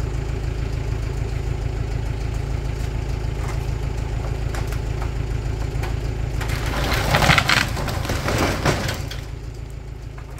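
An engine idling steadily, then about seven seconds in a burned, wood-framed garage wall section collapses onto the rubble with a loud crash of cracking, splintering wood and crunching debris that dies away over the next couple of seconds.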